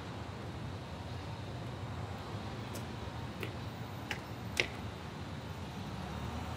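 Steady low rumble of city background noise, with a few short sharp clicks about three to four and a half seconds in, the last one the loudest.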